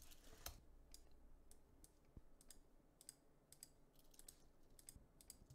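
Near silence broken by faint, irregular clicks of a computer mouse and keyboard.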